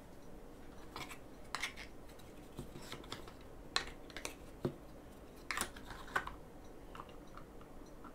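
Irregular small clicks and taps of a metal hex driver and screws against the hard plastic rear gearbox cover of a Traxxas Slash RC truck as the cover is screwed back on.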